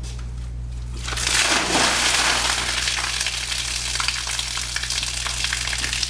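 Trapped flood water gushing out of a cut-open insulated flexible heating duct and splashing onto a concrete floor. It starts suddenly about a second in, then keeps pouring and spattering steadily.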